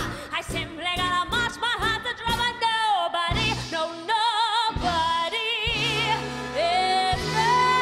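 Female singer with a live orchestra, singing a show tune: a quick run of short notes, then held notes with wide vibrato and notes that slide upward near the end.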